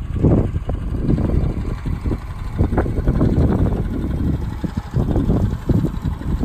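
Wind buffeting the microphone in loud, irregular gusts of low rumble.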